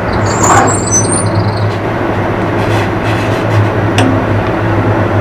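Steady low machine hum with a constant background noise. A plastic bag crinkles about half a second in, and there is a light tap near four seconds.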